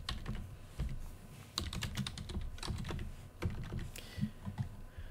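Computer keyboard being typed on: irregular runs of key clicks broken by short pauses.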